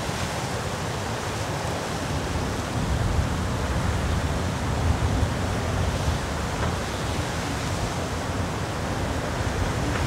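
Cold northwest winter wind blowing in gusts, swelling a little about midway, with a low rumble of wind buffeting the microphone.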